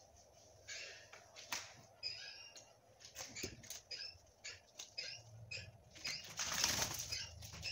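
Small birds chirping in repeated short bursts over wet rubbing of a dog's soaked fur. A longer rush of noise comes about six and a half seconds in.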